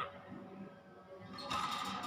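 Music, quiet at first and growing fuller and louder about one and a half seconds in, after a brief sharp sound at the very start.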